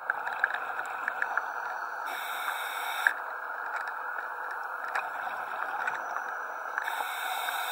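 Underwater ambience heard from a dive: a steady hiss scattered with small clicks and crackles, and two short bursts of scuba regulator breathing, about two seconds in and again near the end.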